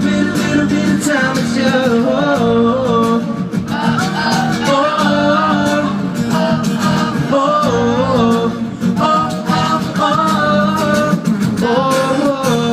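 Live amplified pop music: a singing voice over guitar and a band backing.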